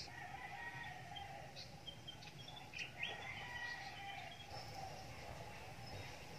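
Faint birds chirping outdoors: short high calls scattered through, the loudest about three seconds in, over a steady low background.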